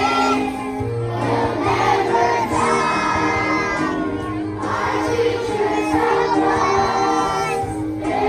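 A children's choir singing a song with instrumental accompaniment, the accompaniment holding steady chords under the voices.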